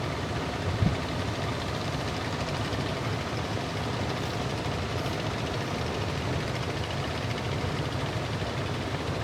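Fishing boat's engine running steadily under way, with one low thump just under a second in.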